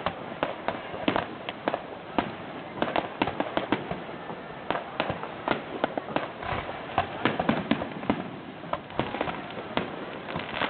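Fireworks going off: a fast, irregular run of sharp bangs and crackles, several a second.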